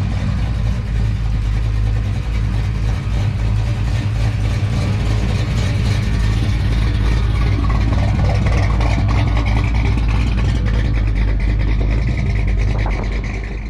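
A vehicle's engine running steadily at low speed, a constant low hum that stays even throughout.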